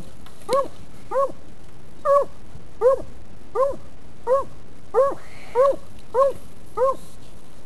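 Walker coonhound barking at a tree in a steady rhythm: about ten short chop barks, roughly one every 0.7 seconds, each rising and falling slightly in pitch. It is a coonhound's tree bark, given when the dog has game treed.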